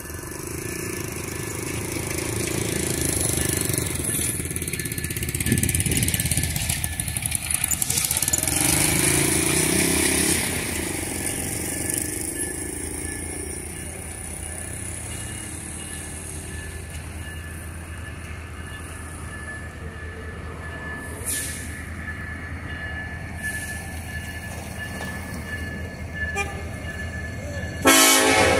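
EMD SD70ACe diesel locomotive's 16-cylinder two-stroke engine running with a steady rumble as it draws closer, then a loud air-horn blast sounds near the end.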